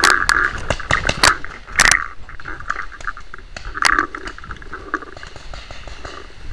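Sharp pops of pump-action paintball markers firing, several in the first two seconds and another about four seconds in, with faint scraping and crackling between them.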